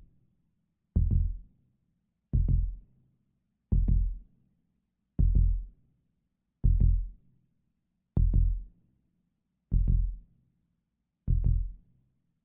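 Heartbeat sound effect: eight deep, low thumps about a second and a half apart, the gaps slowly lengthening as the heartbeat slows down.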